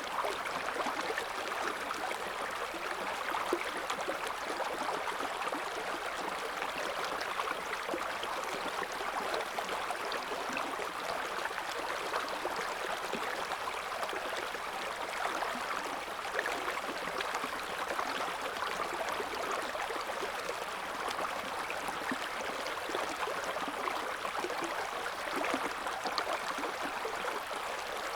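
River water flowing steadily over stones, a constant babbling rush with small splashes and gurgles throughout.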